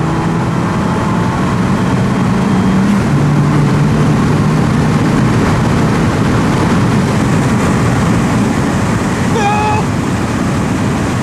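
Fiat 500 Abarth's turbocharged four-cylinder engine under hard acceleration, heard from inside the cabin. The engine's pitch climbs, drops at a gearshift about three seconds in, and climbs again. Loud wind and road noise build as speed rises.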